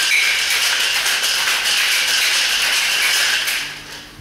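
Ice rattling hard inside a Boston shaker (mixing glass over a metal tin) shaken vigorously with a cocktail of rum and egg white. The shaking stops about three and a half seconds in.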